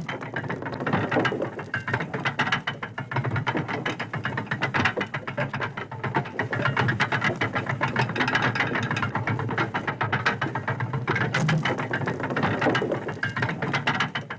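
Sound design for an animated logo reveal: dense, rapid mechanical clicking and ratcheting like turning gears, over a steady low hum, cutting off abruptly at the end.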